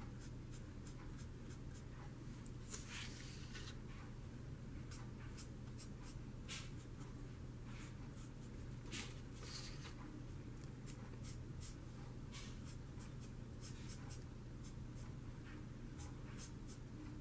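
Spectrum Noir alcohol marker being stroked across paper while colouring: many short, irregular scratchy strokes. A low steady hum runs underneath.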